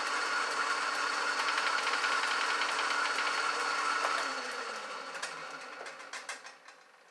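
1929 South Bend lathe running at top speed while turning mild steel with a carbide bit: a steady whine with a fast, even ticking. About four seconds in it is switched off, and the sound drops in pitch and fades as the spindle coasts down, with a few knocks near the end.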